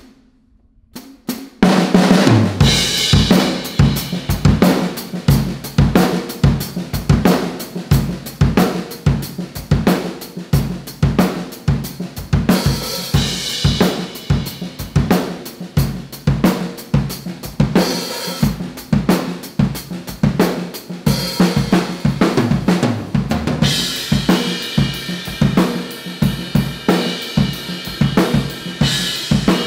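Acoustic drum kit played hard: a few scattered hits, then from about two seconds in a continuous fast groove of kick drum, snare and cymbals, with cymbal crashes returning every several seconds.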